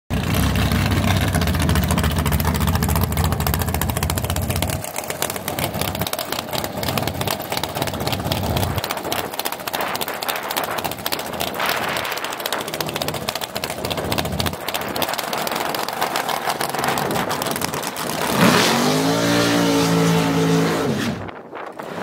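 Dragster's engine running with a rapid, lumpy firing pulse, then revving up sharply about eighteen seconds in as the car launches, and dropping away shortly before the end.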